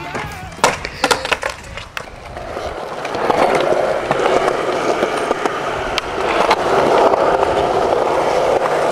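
Skateboard wheels rolling on smooth concrete, a steady rolling noise that builds from about two and a half seconds in. It follows a quick cluster of sharp clacks of the board about a second in.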